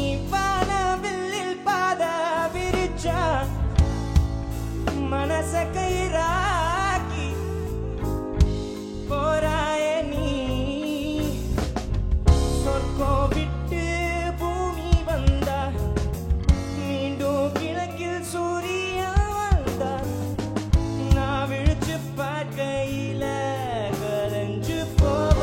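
A male singer performs a Tamil film song with bending, ornamented vocal runs over band accompaniment with a steady drum beat.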